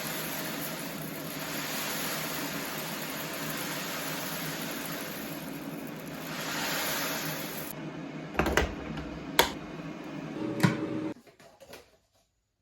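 A small motor-driven kitchen appliance or fan running steadily. It ends with a few sharp clicks and knocks and cuts off abruptly about eleven seconds in.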